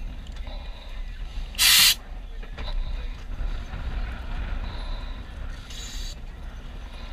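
Scuba gear letting out short hisses of compressed air as it is set up and checked: one loud burst lasting a fraction of a second about a second and a half in, and a fainter, higher one near six seconds, over a steady low rumble.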